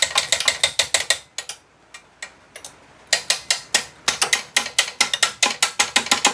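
Hand ratchet wrench clicking in quick, even strokes, about six clicks a second, in two runs with a short pause of a couple of seconds between them.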